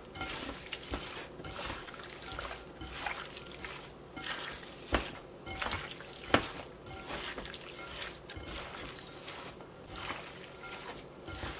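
Hands squeezing and mixing raw chicken thigh pieces with chopped onion, sun-dried tomatoes and dry seasonings in a glass bowl: soft, irregular wet squishing, with a couple of sharper clicks midway.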